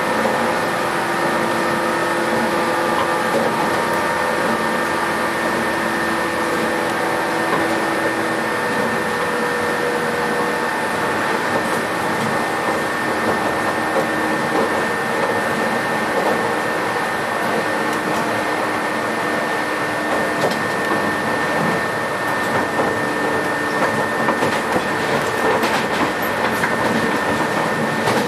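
Inside a JNR 117-series electric train under way: the whine of the DC traction motors and gears over steady rolling noise. The pitched motor whine fades out about a third of the way through, leaving the rolling noise and a steady high tone. A few clicks come near the end.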